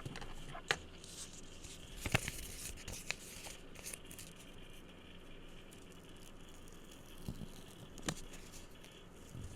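Objects handled and tapped close to the microphone: a few sharp, separate taps, with a cluster about two seconds in and a last one about eight seconds in, and faint handling noise between them.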